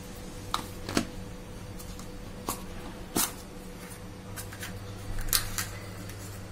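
About half a dozen short clicks and taps of a green plastic spice box being handled, its snap lids opened and closed, over a low steady hum.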